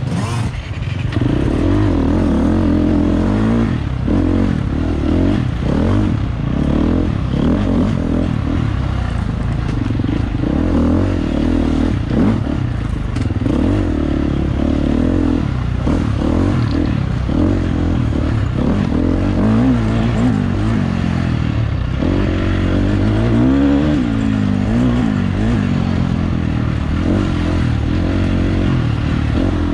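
Off-road dirt bike engine running under load, its revs rising and falling every second or two as the throttle is worked.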